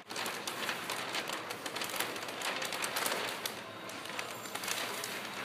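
Large sheet of paper crinkling and rustling as it is handled and rolled, a steady run of small crackles.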